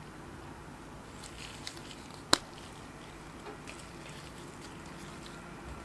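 Lipstick cases handled in gloved hands: a few light clicks and taps, and one sharp click a little over two seconds in, over a steady background hiss.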